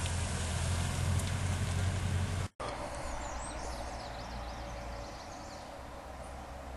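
Toyota pickup truck engine running low and steady for about two and a half seconds, then it cuts off abruptly. Quieter outdoor background follows, with faint high bird chirps.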